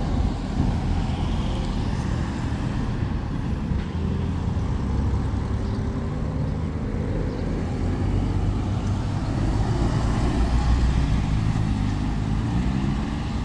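Road traffic: motor vehicle engines running and passing at a junction, with a heavy diesel engine, from a coach, growing louder about ten seconds in.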